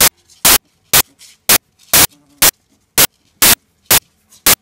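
Short, loud bursts of static-like noise, about two a second, each starting and stopping sharply: a digital glitch in the recording.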